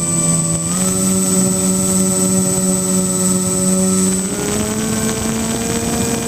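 Twin brushless electric motors and 10x6 propellers of a foam-board RC plane droning in flight, heard from the onboard camera, with air rushing past. The pitch steps up about a second in and again a little past four seconds in as the throttle is advanced.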